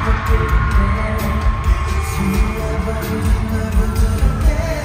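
Live K-pop music from an arena sound system, heard from the audience: a heavy bass beat with a man's voice singing over the track.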